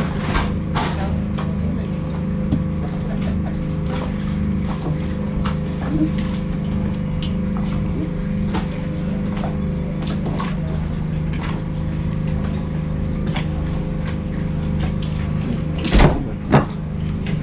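A sailing yacht's engine running steadily under way, an even low hum, with scattered light knocks and clicks and two louder thuds near the end.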